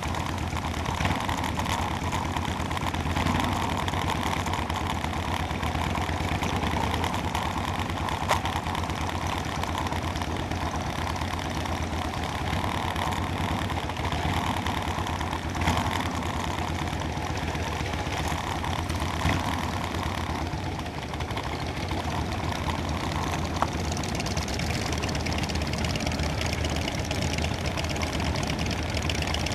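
Motorcycle engine running steadily, a low drone throughout, with a few brief clicks or knocks along the way.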